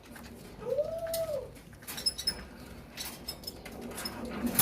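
A shih tzu puppy gives one short whine that rises and falls in pitch, among scattered light clicks and taps, with a sharper click near the end.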